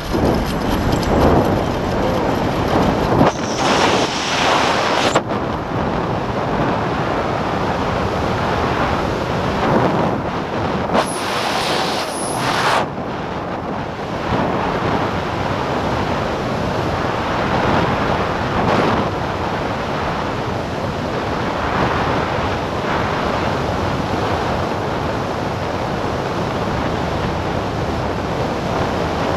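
Heavy wind noise rushing over the microphone of a camera riding a high-speed zipline at about 75 mph. The hiss brightens briefly twice.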